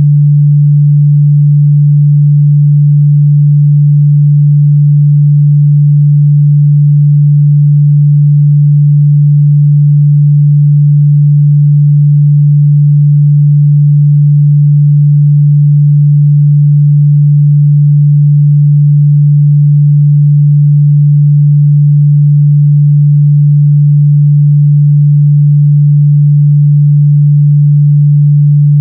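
A steady, loud 146 Hz sine-wave test tone, a single unchanging low hum, used to check a speaker's or headphone's mid-bass response.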